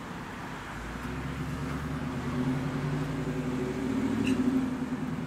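A motor vehicle passing close by: a low engine hum that swells over a few seconds and then fades.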